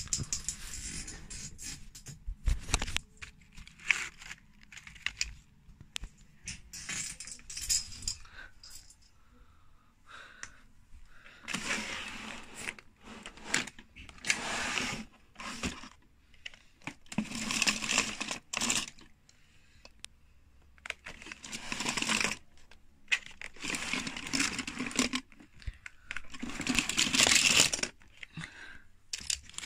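Rustling, crinkling and scraping as things are handled and moved about, in repeated bursts of a second or so with small clicks and knocks between them.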